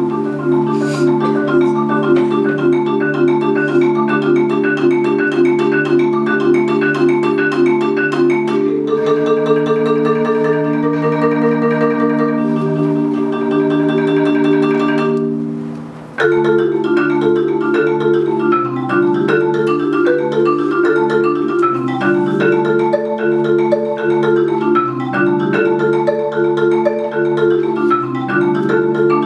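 Solo concert marimba (DeMorrow 4.3-octave, rosewood bars) played with mallets: a fast, repeating low-register pattern of struck notes. About a third of the way in it changes to rolled, sustained chords that fade away, then the driving pattern comes back abruptly about halfway through.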